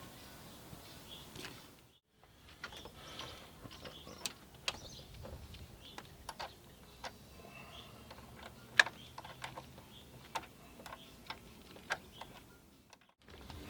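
Scattered light clicks and taps of hands working with wires and small parts, at irregular intervals.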